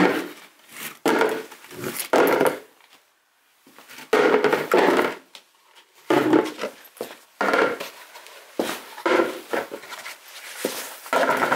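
Stacked plastic horse feed bowls pulled apart and set down one after another on a concrete floor: a string of knocks and clatters, roughly one a second, with a short pause about three seconds in.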